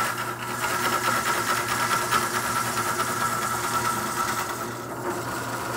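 Wood lathe running with a steady hum as a long turning tool cuts into a large spinning bowl blank, with a continuous hiss of wood being cut under the hum.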